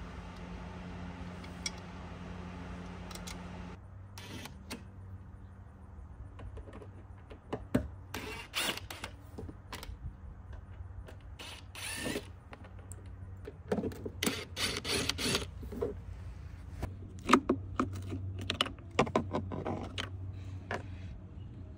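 Hand tools working on fasteners and plastic van trim: scattered clicks, rattles and ratchet-like clicking, with short clusters of sharp knocks. A steady low hum runs under the first few seconds and stops abruptly at a cut.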